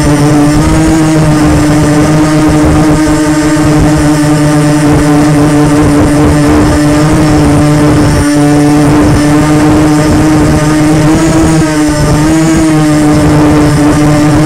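Quadcopter drone's electric motors and propellers buzzing steadily in flight, the pitch wavering slightly now and then.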